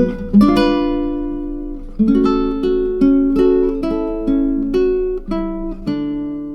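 Background music: plucked acoustic guitar picking a gentle melody over chords, ending on a held chord that rings and fades away near the end.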